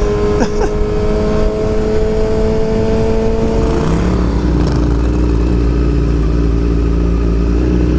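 Yamaha R6's inline-four engine running at a steady high speed under way, with wind rush. About halfway through, the engine note drops to a lower steady pitch.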